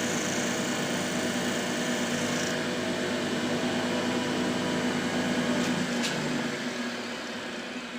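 Mini CNC wood lathe running, a steady motor hum with several held tones. The higher cutting hiss drops away about a third of the way in, a click comes about six seconds in, and the machine quietens near the end.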